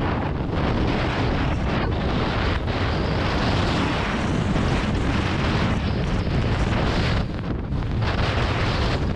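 Wind buffeting the camera microphone during a fast downhill run on snow: a steady rushing rumble that dips briefly near the end.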